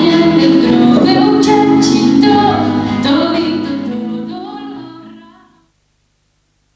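A song with a woman singing over instrumental backing, fading out over about two seconds around the middle, then silence.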